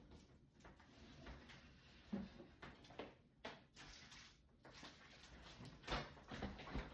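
Scattered light knocks and clatters, the loudest a little before the end, from items, shelves and drawers being handled in a refrigerator.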